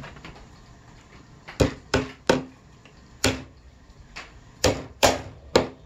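Hammer driving a nail into a pine hive-box side, about nine sharp strikes. They begin about a second and a half in: three in quick succession, a single strike, then a quicker run of four near the end.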